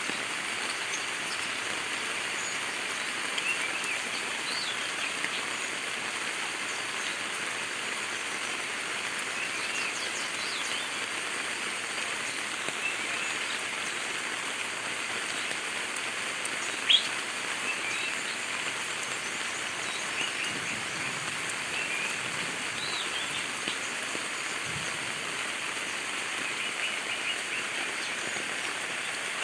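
Steady rain falling, with scattered short bird chirps over it; one chirp a little past halfway stands out louder than the rest.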